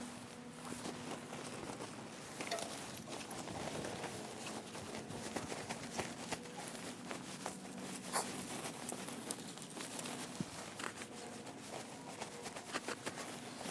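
Heavy-duty polyester landscape fabric rustling and crinkling as it is unrolled and smoothed down into a dug trench, with scattered soft taps and scuffs, fairly quiet. A faint steady hum runs underneath.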